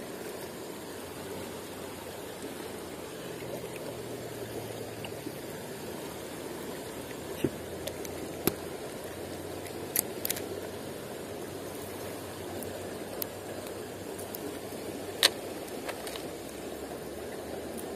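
Shallow river flowing over stones: a steady rushing of water. A handful of short, sharp clicks are scattered through it, the loudest a little before the end.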